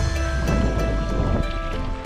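Background music with held tones laid over the footage.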